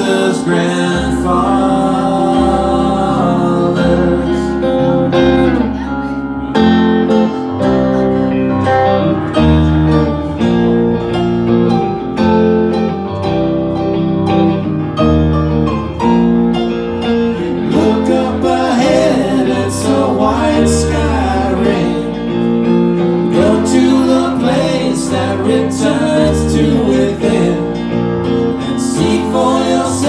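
Live music from a keyboard and an electric guitar playing a song together, with singing over it.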